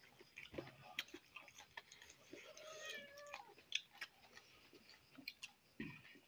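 Faint eating sounds: fingers mixing rice and curry on steel plates, with scattered small clicks and chewing. About halfway through, a faint wavering high call glides downward in the background.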